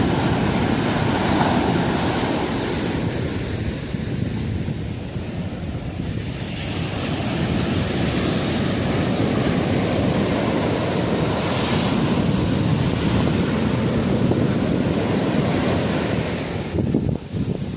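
Sea surf breaking and washing on a beach, rising and easing in slow swells, with wind buffeting the microphone.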